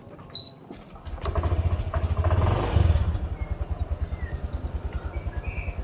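A short high beep, then about a second in a small engine starts, runs up briefly and settles into a steady idle with an even low pulse.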